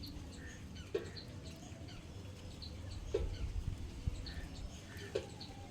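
Pet lovebirds chirping, with many short, high chirps and a short lower sound about every two seconds.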